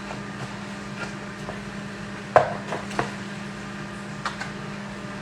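Scattered light knocks and clicks of plastic Tupperware kitchenware being handled while grated eggplant is pressed in a strainer to squeeze out its water, the loudest knock a little past the middle, over a steady low hum.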